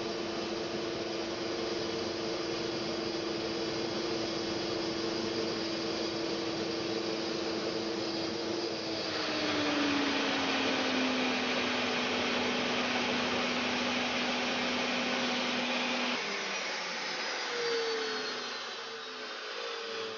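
Aircraft engine running: a steady whine over a loud rush. About nine seconds in, the whine drops in pitch and the rush grows stronger. The whine cuts off a few seconds before the end, leaving a fading rush with a faint falling high whistle.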